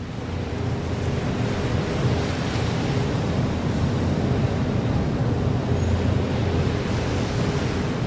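Sound-effect ambience of a warship at sea: a steady low rumble with a hiss of wind and waves over it. It swells up over the first second, then holds steady.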